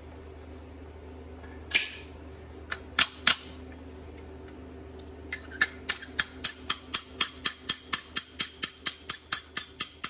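Brass hammer tapping a punch to drive out the pad retaining pins of a Toyota Tacoma front brake caliper. A few scattered metallic taps come first, then from about five seconds in a quick, even run of taps, about four a second.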